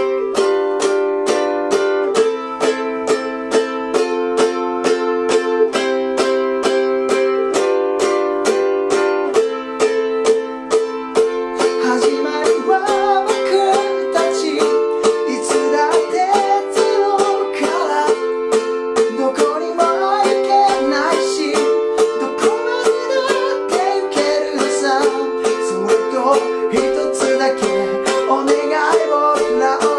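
Concert ukulele strummed in a steady rhythm through a four-chord interlude (C, G7, Am, F), the chord changing about every two seconds. About twelve seconds in, a man's singing voice joins over the strumming.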